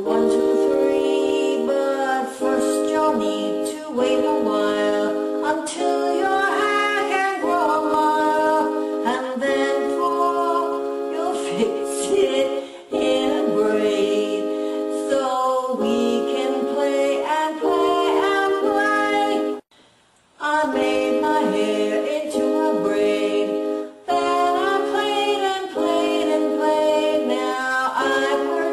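A woman singing a slow melody over held electronic keyboard chords that change every couple of seconds, with a brief break about two-thirds of the way through.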